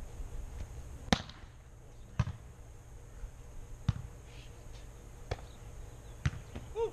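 Volleyball struck by hands in a rally: five sharp slaps roughly a second apart, the first (the serve) the loudest. A brief shout comes just before the end.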